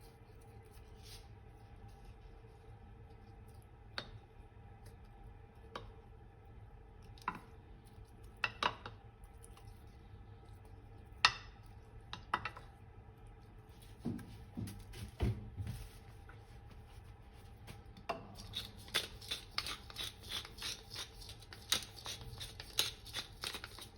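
Occasional light clicks and knocks of kitchen items being handled, then, about three-quarters of the way through, a dense run of crisp crackling from aluminium foil being handled to cover the roasting dish.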